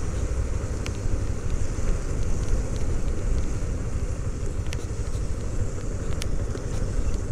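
Motorcycle ridden at low speed, a steady low engine and road rumble with wind on the microphone. A few faint ticks sound now and then.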